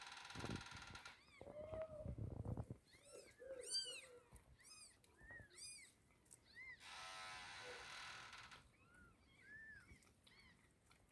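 One-day-old kittens mewing: many short, high-pitched cries in quick succession. Two stretches of hiss-like noise, each a second or two long, come at the start and about seven seconds in.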